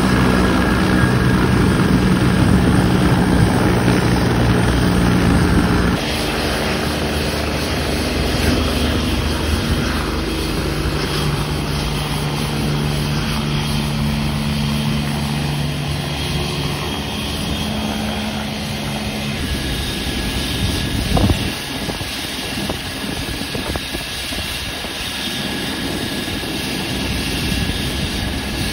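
Police turbine helicopters, a BK117/EC145 and an EC135, running with their rotors turning, in several cut-together clips. The sound changes abruptly about six seconds in and again around twenty seconds, when a steady high whine comes in. There is one brief knock soon after.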